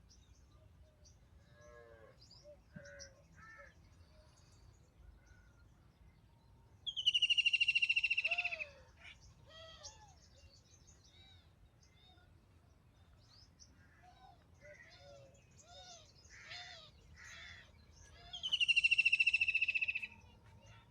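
Birds calling: two loud, long buzzy calls, one about seven seconds in and one near the end, each lasting about a second and a half and dropping a little in pitch. Fainter short chirps from other birds sound throughout.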